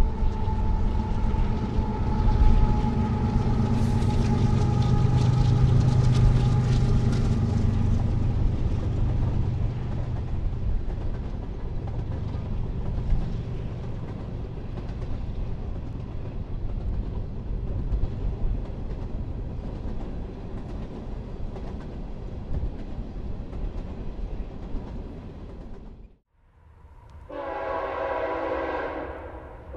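CSX freight train's diesel locomotives and cars rumbling past, loudest for the first several seconds and then fading. After an abrupt cut near the end, a locomotive air horn blows a loud chord.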